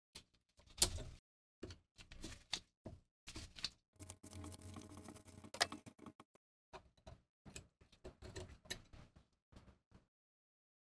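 Locking pliers gripping and turning the rusted screw of a bayonet's locking-ring clamp: scattered metal-on-metal clicks and scrapes, with a louder click about a second in and a longer grinding scrape in the middle.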